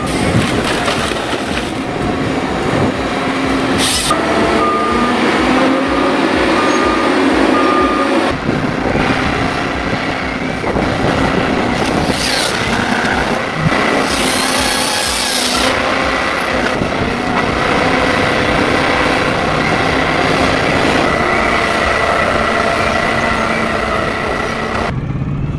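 Heavy machinery running: a diesel engine with dense mechanical noise, and a repeating warning beep during the first several seconds. The sound changes abruptly near the end.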